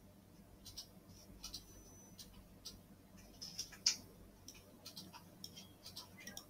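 Faint, irregular clicks of a computer mouse, button presses and scroll-wheel ticks, as a web page is scrolled. They come in scattered over the last five seconds, with the sharpest click about four seconds in.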